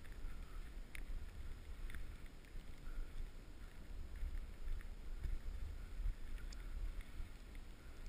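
Wind buffeting an action camera's microphone during a downhill ski run, a low rumble that swells and fades, with skis sliding over packed snow and a few faint scrapes.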